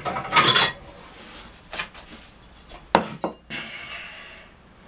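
A ceramic plate is fetched from among other dishes and set down on a wooden board. There is a clattering rattle about half a second in, then two sharp clinks about three seconds in.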